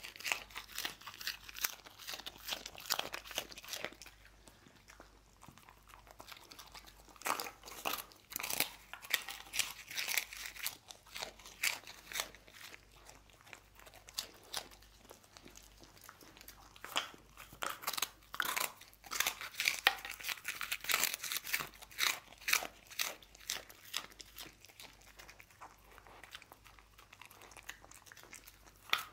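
A dog crunching and chewing puffed rice biscuits (ppeongtwigi): spells of quick, crisp crunches with quieter pauses between them.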